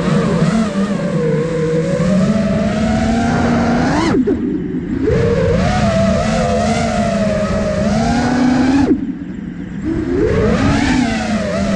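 The brushless motors and propellers of an iFlight Nazgul Evoque F5 FPV quadcopter, heard from its onboard camera. The whine rises and falls in pitch with the throttle. Twice, near 4 s and near 9 s, the throttle is chopped: the whine drops away sharply, then climbs back up.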